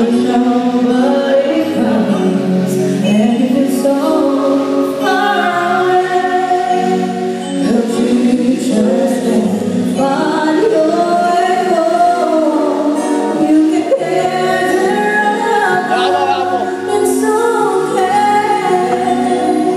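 Woman singing a slow pop ballad live into a microphone, with female backing vocalists and a live band accompanying her. The sung lines are long and held, and the music runs on without a break.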